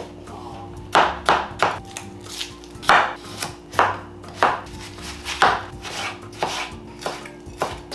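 Knife chopping fresh vegetables on a cutting board: a dozen or so sharp, uneven strokes.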